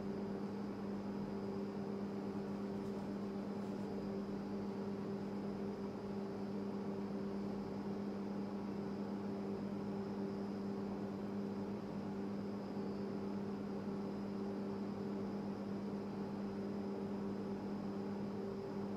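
Steady low electrical hum over a faint hiss: the room tone of an indoor space, with no other events.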